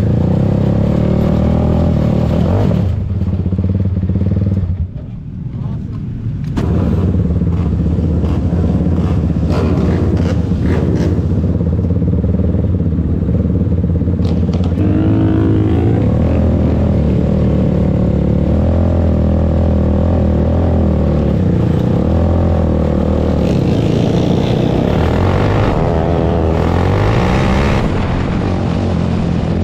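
Open 500 outlaw dirt kart engines running hard, with a short drop in engine sound about five seconds in before the power comes back on.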